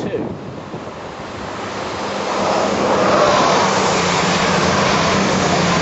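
Passenger train passing at speed close by: a rushing of wheels and air that builds over the first few seconds, peaks as the carriages go by, and then holds, over a steady low hum.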